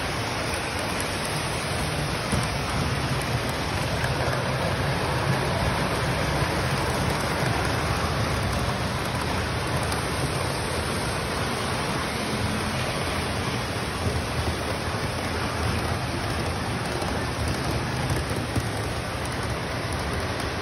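Several O-gauge model trains running together on three-rail metal track: a steady rolling rumble of wheels and motors.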